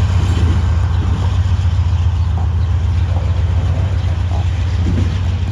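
Freight train rolling past with a steady, continuous low rumble.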